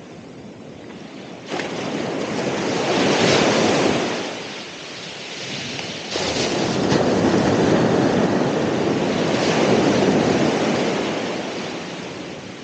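Ocean waves breaking, twice: one crashes in about a second and a half in, swells and washes back, and a second breaks suddenly about six seconds in, stays loud for a few seconds, then fades near the end.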